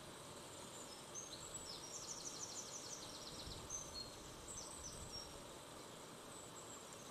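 Faint bird chirping over a steady hiss: a quick trill of high notes, about eight a second, lasting about a second and a half, with short high chirps before and after it.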